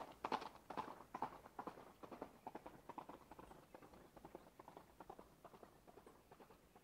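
Rhythmic clopping clicks, a few a second, like hoofbeats, fading steadily away.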